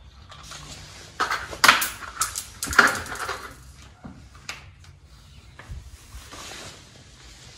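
Small metal hardware clinking and rattling as the M6 bolts are picked out: a cluster of sharp clinks in the first half, then fainter handling sounds.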